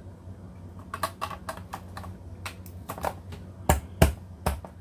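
Hard plastic clicking and tapping as a blade grid is pushed and fiddled into the base of a Mueller vegetable chopper, with three sharper knocks near the end as it is pressed down. The grid will not go in.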